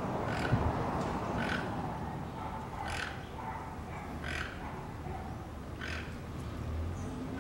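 Toco toucan calling: a series of short, hoarse croaks repeated evenly about every second and a half, five in all.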